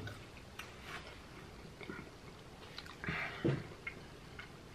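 Close-miked chewing of a mouthful of pizza crust: soft wet mouth sounds and faint clicks, with a couple of louder mouth sounds about three seconds in.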